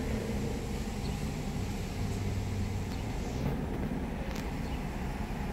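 A parked BMW X5 (E70) idling, a steady low hum heard from inside the cabin, with a couple of faint clicks past the middle.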